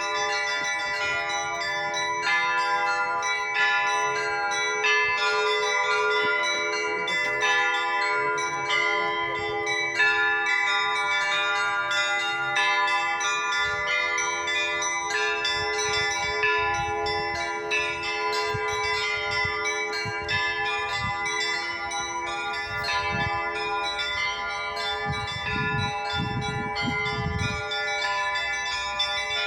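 Russian Orthodox church bells rung in a continuous peal: many bells struck again and again, their tones overlapping and ringing on without a break.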